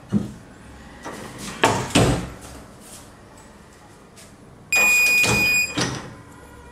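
Heat press for sublimation printing: a few clunks as the stone slate is loaded and the press is worked, then its timer sounds one steady high beep for about a second, marking the end of the pressing time, followed by another clunk as the press is opened.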